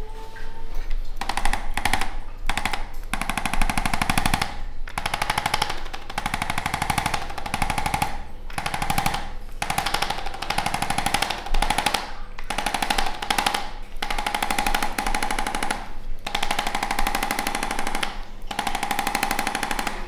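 Handheld electric percussion instrument rattling against the back along the spine: rapid, even strikes with a steady whine, in bursts of one to three seconds separated by short pauses as it is repositioned.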